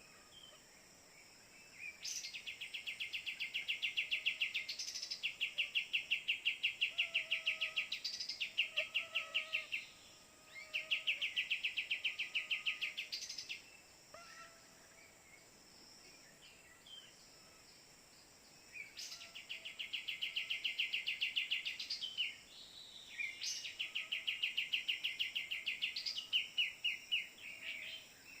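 Bird calls: a rapid, pulsing trill repeated in bursts of two to four seconds, with faint short whistles in between.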